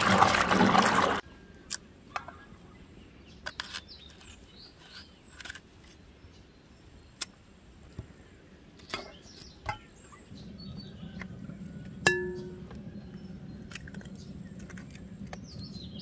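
Water splashing as a gloved hand churns peaches in a basin, which stops sharply after about a second. Then come scattered light clicks of a knife against glass bowls as peaches are sliced, with faint bird chirps. About twelve seconds in there is a single ringing clink of glass, and a low steady hum joins shortly before it.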